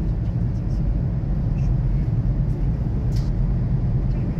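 Steady low rumble of a car driving through a road tunnel, heard from inside the cabin, with a short click about three seconds in.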